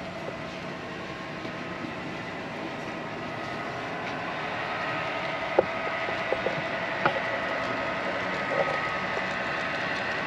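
HO scale model trains running on the layout: a steady whine of small electric motors and wheel noise on the track, growing a little louder, with a few sharp clicks about halfway through.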